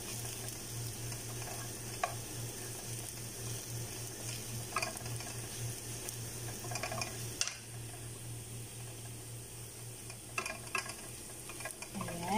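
Sliced garlic sizzling in hot olive oil in a frying pan, lightly browned, with a wooden spoon now and then scraping and tapping against the pan in short clicks.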